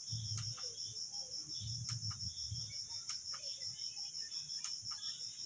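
Crickets trilling steadily outdoors at night: a continuous high, rapidly pulsing chirp, with a few faint ticks.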